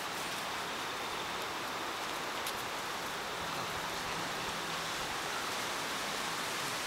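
Steady, even outdoor background hiss, with no puppy whining or barking standing out.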